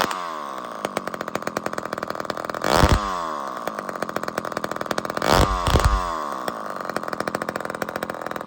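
Two-stroke chainsaw engine running, blipped up twice, about three seconds in and again around five and a half seconds, and settling back to idle after each. The firing is uneven: a slight misfire put down to old fuel in the carburettor.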